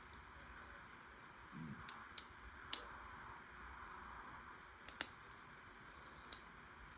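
Hard plastic LEGO Technic parts clicking as they are handled and pushed together: about six sharp, irregular clicks over a faint steady hiss.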